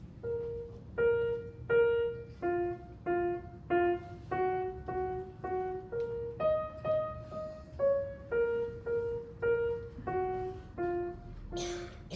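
Piano played at a slow, even pace: a single-note melody, one note about every half second, with a short rustling noise near the end.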